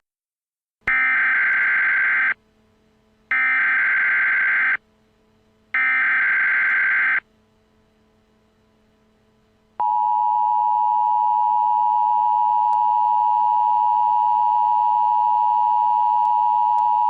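Emergency Alert System header: three short bursts of digital data tones, each about a second and a half long with short gaps between them. About ten seconds in comes the steady two-tone attention signal, which marks the start of an emergency alert broadcast.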